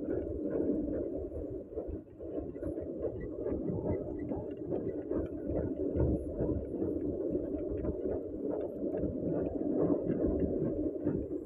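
Steady, muffled rumble of a passenger train coach running, heard from inside the coach, with faint light rattles over it.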